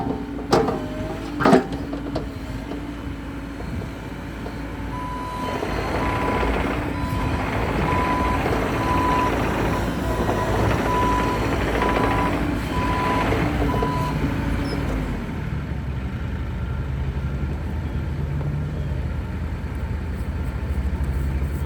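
Bobcat E50 R2 compact excavator's diesel engine running under hydraulic load, with a couple of sharp knocks near the start. From about five seconds in, its travel alarm beeps about once a second for some nine seconds while the machine works harder. Near the end the engine settles to a lower, steady run.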